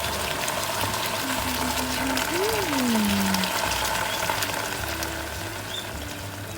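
Food frying in hot oil: a steady sizzle full of small crackles. About two and a half seconds in there is a short hum that rises and then falls.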